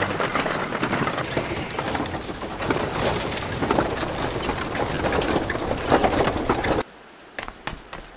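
Horse-drawn carriage rolling over stone paving, its wheels and hooves making a dense, continuous clatter. It cuts off suddenly near the end, leaving a quiet background with a few light knocks.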